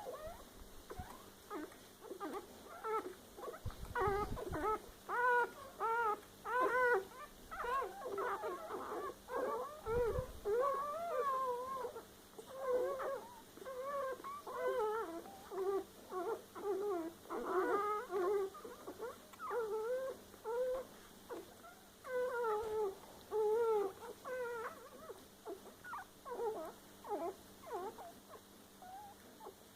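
Newborn Rottweiler puppies whimpering and squeaking: many short, high cries that rise and fall, overlapping one another, thinning out near the end.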